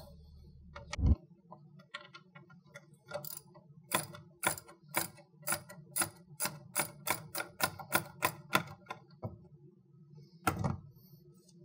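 Socket ratchet clicking as the 12 mm bolt is backed out of the battery hold-down bracket: a run of quick, even clicks, about three or four a second, that stops about nine seconds in. A single knock comes about a second in and another near the end.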